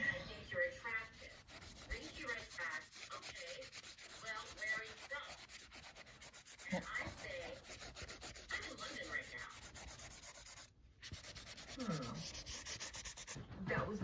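Watercolour brush scrubbing paint onto textured watercolour paper close to the microphone: a continuous scratchy rubbing of quick strokes, breaking off briefly about eleven seconds in.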